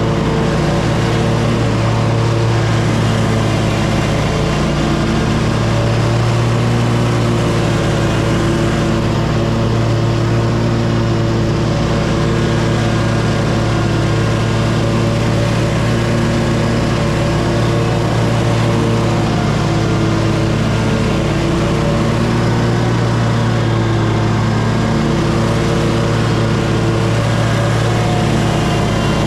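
Lawn mower engine running steadily at an even speed.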